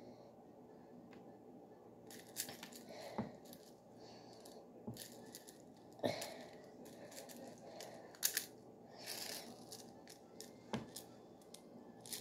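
Soft handling noises of candy sprinkles and a small plastic cup: a scatter of light clicks and brief rustles that begin about two seconds in.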